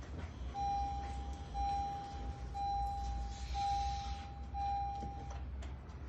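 Electronic beeping during car key programming: five long beeps of one steady pitch, about a second each and nearly back to back, over a low steady hum.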